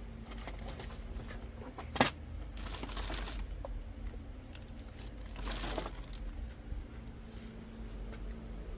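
Goods being handled: a sharp knock about two seconds in, then two spells of rustling, crinkling, over a steady low hum.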